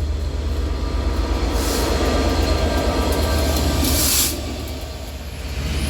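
Train running into the platform: a steady low rumble with faint steady tones over it, and two short bursts of hiss, about two seconds and four seconds in. The sound drops in level after the second hiss.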